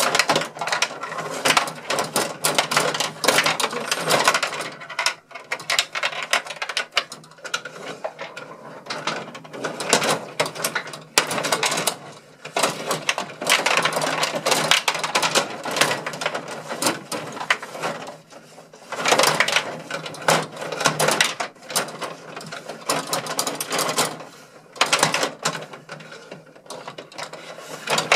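Gretzky rod-style table hockey game in fast play: the control rods are pushed, pulled and spun, making a constant plastic clattering and clicking of rods and gears in flurries with short lulls.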